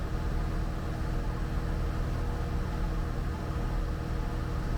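Cessna 172 Skyhawk's piston engine and propeller droning steadily at cruise power, heard from inside the cabin.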